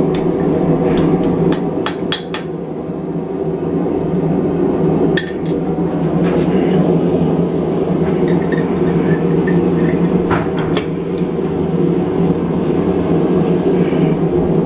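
Irregular hammer blows on an anvil bending the hot front corners of a forged steel mason jar handle: a quick run of strikes in the first couple of seconds, then single blows every second or two, a few ringing briefly. A steady low drone runs underneath.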